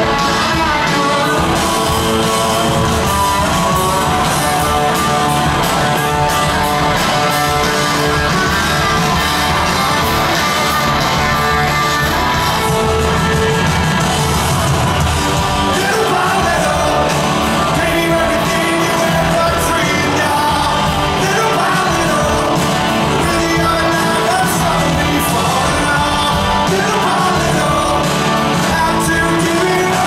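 Live rock band with electric guitars, bass and drums playing in an arena, heard from among the audience. Sung vocals come in about halfway through, and the crowd shouts and sings along.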